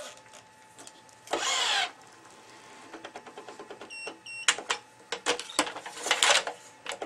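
Tennis racket stringing on a stringing machine: a rasping zip of string being drawn through the frame about a second and a half in and again near the end, with scattered metal clicks of the clamps. About four seconds in, two short high beeps sound.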